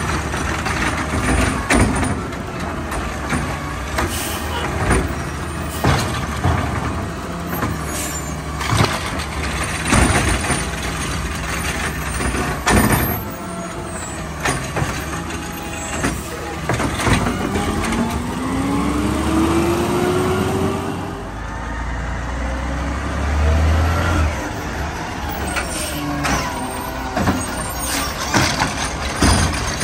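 McNeilus automated side-loader garbage truck working a cart: the diesel engine runs steadily under repeated clunks and bangs as the hydraulic arm lifts, dumps and sets down the bin. The engine revs up once for a few seconds, about two-thirds of the way through.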